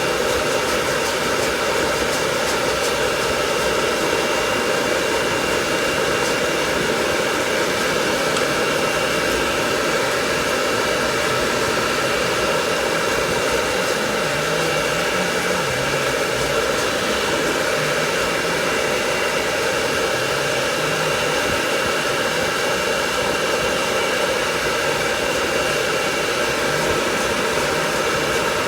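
Hair dryer running steadily at one setting, a constant blowing hiss.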